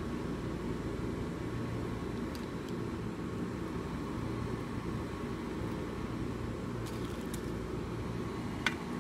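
Steady low mechanical hum and hiss of a running appliance, with a few faint clicks and a sharper click near the end.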